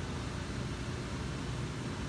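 Steady machine hum and hiss with a constant low tone, like a motor or fan running in the workshop; no hammer strikes.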